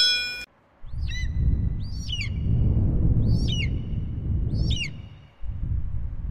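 A bright chime rings at the very start and stops after about half a second. A bird then gives a whistling call four times, about once a second, over a low rumble of wind on the microphone that drops out briefly about five seconds in.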